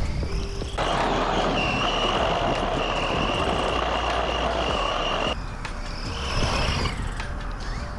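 Vkar Racing Bison brushless RC truck driving hard over grass, heard up close from a camera mounted on the truck: a steady high motor whine over a dense rush of wind and tyre noise from about a second in until about five seconds in. Either side of that the truck's whine is fainter and further off.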